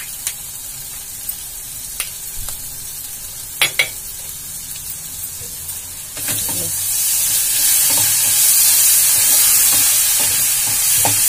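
Chopped vegetables sizzling gently in a hot metal pan, with a few light clicks; about six seconds in the sizzle turns loud and hissy as a wooden spatula starts stirring them around the pan.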